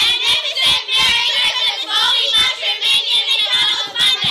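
Children singing together.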